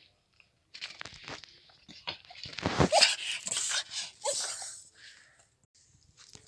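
A dog play-biting at a hand and a shoe: scuffling, crunching and rustling noises, loudest about halfway through, with a couple of short squeaks.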